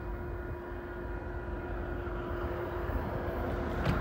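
Distant freight train approaching: a low rumble with one faint steady horn note held over it, slowly growing louder.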